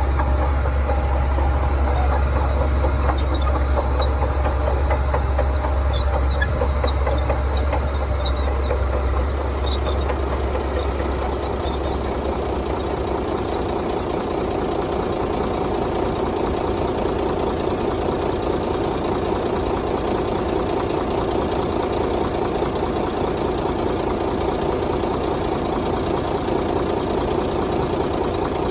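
Shantui bulldozer's diesel engine running, with a strong deep rumble for about the first eleven seconds, after which the engine note shifts higher and carries on steadily.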